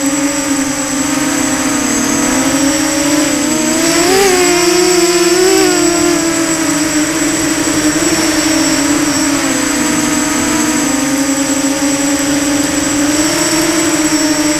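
Motor and propeller of a radio-controlled model aircraft, heard from its onboard camera: a steady whine with a thin high tone above it, briefly rising and falling in pitch about four seconds in.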